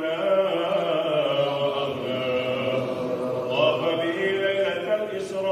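A male voice chanting Arabic devotional verse in the melodic style of a moulood (mawlid) recitation, with long held notes that slide in pitch, sung into a microphone.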